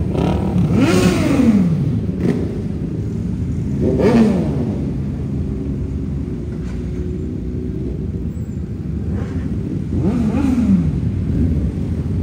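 Sport motorcycle engines running over a steady rumble, with three quick revs that each rise and fall in pitch, about a second in, about four seconds in and near the end.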